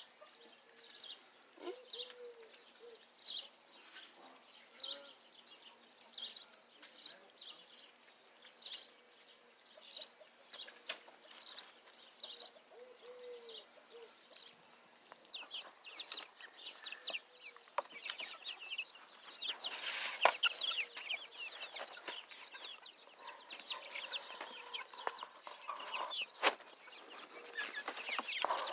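Backyard chickens clucking and calling, with short high calls every second or so at first, then growing busier and denser from about halfway through.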